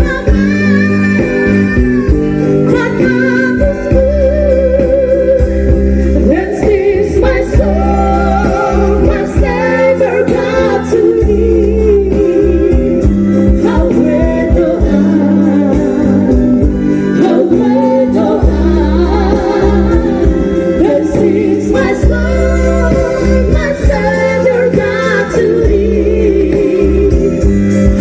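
Group of voices singing a song with instrumental accompaniment and a steady bass.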